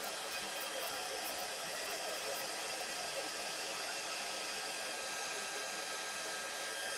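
Embossing heat tool running steadily, its fan blowing an even rushing noise with a faint steady whine, as it heats embossing on a card.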